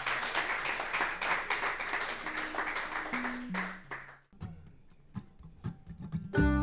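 Audience applause and clapping, fading out after about four seconds, with a few low plucked notes stepping downward beneath it. After a near-quiet gap with a few small clicks, a bluegrass band of mandolin, banjo, acoustic guitar and double bass strikes up a tune near the end.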